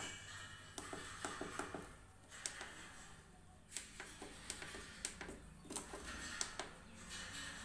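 Irregular sharp clicks of the keypad buttons on a digital weighing scale being pressed one after another as it is stepped through its calibration settings, over a low steady hum.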